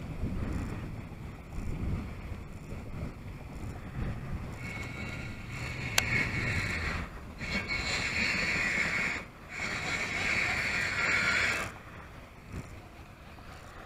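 Wind buffeting the microphone, then a fishing reel being cranked to retrieve line: a whirring in three stretches that starts about five seconds in and stops shortly before the end, with one sharp click about six seconds in.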